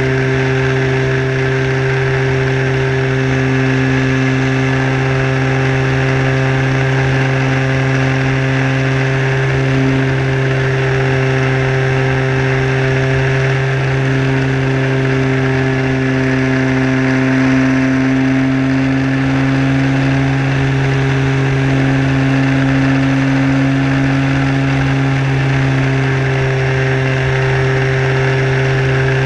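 Sport Cub RC model airplane's motor and propeller running steadily in flight, heard from a camera mounted on the plane: a constant drone with rushing air over it.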